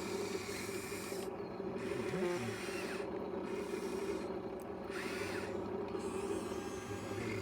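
Small electric motor of a radio-controlled model excavator's hydraulic pump running with a steady buzzing whir, with brief changes in pitch as the machine works.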